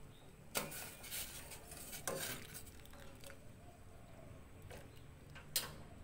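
Metal ladle clinking against the side of a stainless steel pot as it stirs simmering ginger tea: a handful of separate sharp clinks, the loudest near the end.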